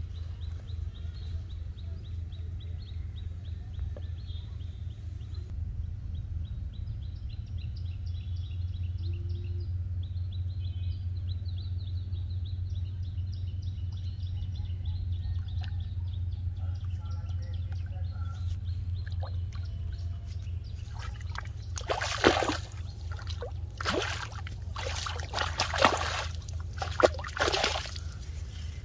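A large hooked fish splashing and thrashing in the shallows as it is hauled out on a hand line: several loud splashes over the last several seconds, over a steady low rumble and faint high chirping.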